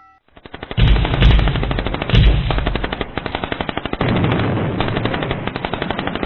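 Automatic gunfire: rapid, evenly spaced shots in sustained bursts, starting about half a second in.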